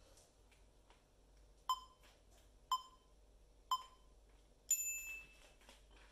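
Electronic countdown timer beeping: three short beeps a second apart, then one longer, higher beep, counting down the last seconds of a rest and marking the start of the next timed stretch.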